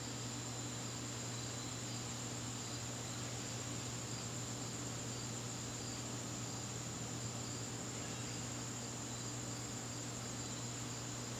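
Crickets chirping: a steady high trill, with fainter chirps pulsing at a regular pace beneath it. A steady low hum runs under them.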